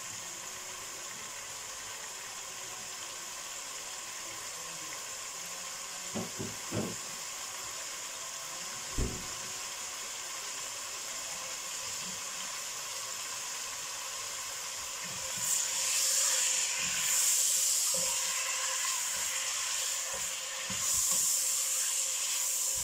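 Raw chicken pieces frying in hot oil in a pot, a steady sizzling hiss that grows louder about two-thirds of the way through, with a few light knocks in the first half.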